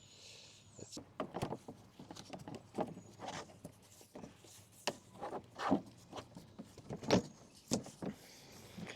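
Irregular clicks, knocks and short scrapes of Black & Decker MM875 electric mower parts being handled and fitted back into place during reassembly.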